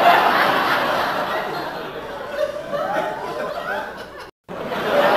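A crowd laughing, like an added laugh-track sound effect. It cuts out for a moment about four seconds in and starts over.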